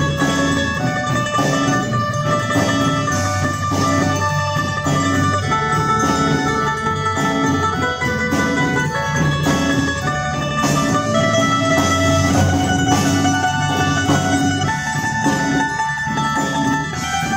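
Live Irish-style folk band playing an instrumental passage: a tin whistle carries the melody over acoustic guitar, drum kit and keyboard.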